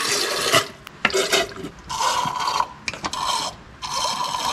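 Aerosol can of non-flammable brake cleaner spraying in several short hissing bursts, cleaning out a brake master cylinder contaminated with a petroleum product.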